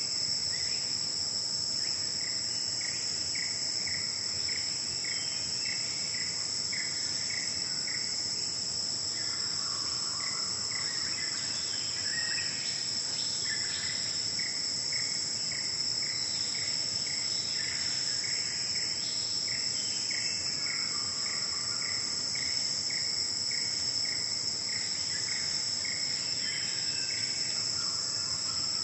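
Dense forest insect chorus, a steady high-pitched shrill that never lets up. Over it runs a regular repeated note, about two to three a second, in long series, with other short calls now and then.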